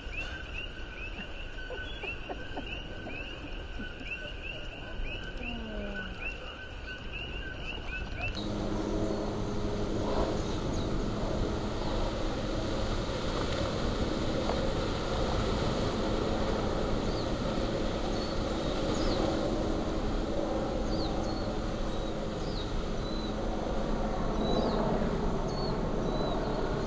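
Rapid, evenly repeated chirping over a high insect-like hiss for the first eight seconds. Then the sound changes sharply to the steady rushing noise of a Kilauea fissure lava fountain, with a low hum and a few bird chirps over it.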